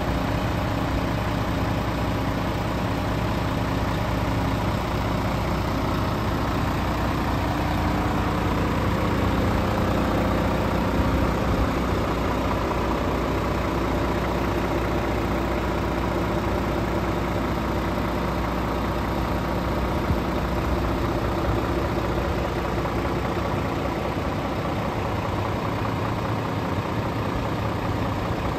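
Scania R450 truck's 13-litre inline-six diesel engine idling steadily.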